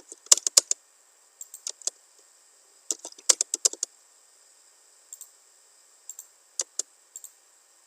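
Computer keyboard and mouse clicking in short quick bursts of several keystrokes, with single clicks between, as drawing commands are typed and picked.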